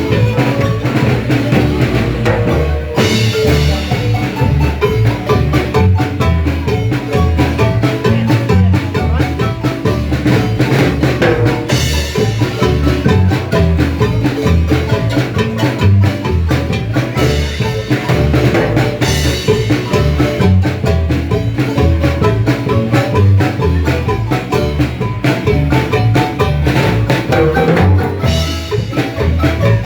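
Marimba dance music, with drums keeping a steady low beat throughout and brighter cymbal-like splashes every several seconds.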